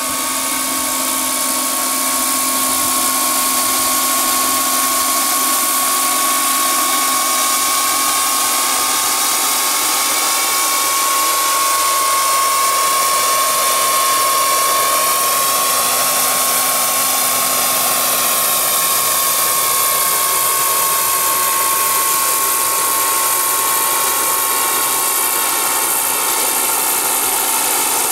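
Gas-turbine engine and rotors of a large radio-controlled Sikorsky S-64 Skycrane scale model helicopter in flight: a steady, high-pitched turbine whine over a rushing hiss.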